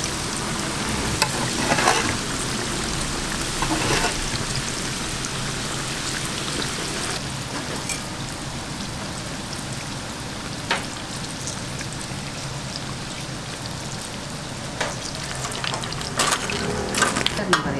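Breadcrumb-coated cheese croquettes deep-frying in a vat of hot oil: a steady sizzle, with a few sharp clicks that bunch up near the end.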